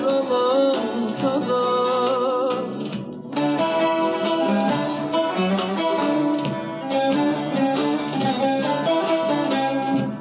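Bağlama (long-necked Turkish saz) playing a folk tune: held, wavering notes at first, a brief break about three seconds in, then fast, rhythmic strumming.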